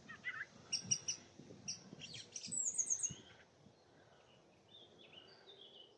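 Song thrush singing: short phrases of quickly repeated high notes in the first three seconds, then quieter, softer notes.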